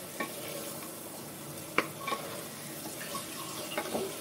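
Mutton and onions sizzling steadily in a pressure-cooker pot over a high gas flame. A wooden spatula stirs them and knocks against the pot a few times, most sharply a little under two seconds in.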